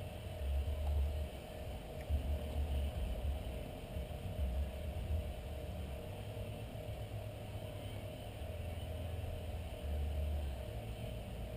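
A low steady hum with a faint steady whine above it, and a deep rumble that swells and fades every second or two.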